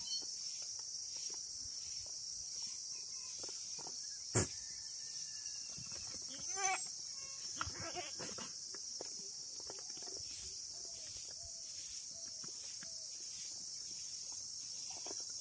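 Goats feeding on dry straw fodder, with one wavering goat bleat about six and a half seconds in, over a steady high insect drone. A single sharp click a couple of seconds before the bleat is the loudest sound.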